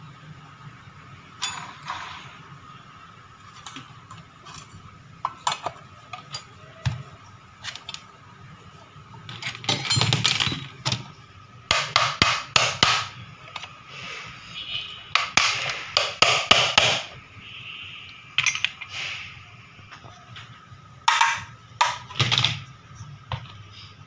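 Sheet-metal fan housing of a vacuum cleaner motor being tapped and knocked with a hand tool to seat it over the fan, in several runs of quick taps.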